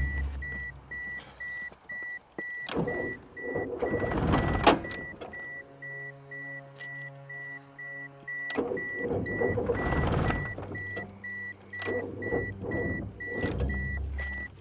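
A car's starter cranking the engine over in three tries of about two seconds each, without it catching: a car that keeps stalling and won't restart. A steady, rapid warning chime beeps from the car throughout.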